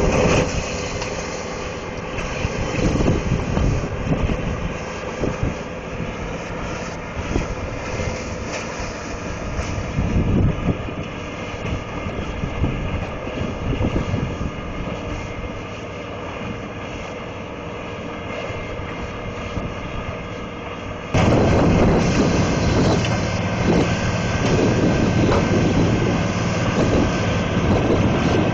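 Morbark 5600 horizontal wood grinder running under load, a heavy diesel engine note under the noise of wood being ground, with irregular surges as material is fed. About 21 seconds in it jumps suddenly louder and closer.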